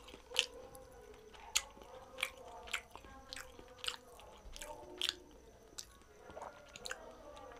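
Close-miked wet mouth sounds of chewing and finger-licking: sharp, crisp lip smacks, about half a dozen in the first five seconds and fewer after.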